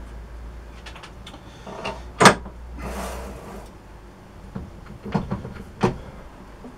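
Workshop handling noises: a loud sharp metal knock a little over two seconds in, a short scraping hiss, then a few lighter knocks and clatters. A low machine hum underneath stops about three and a half seconds in.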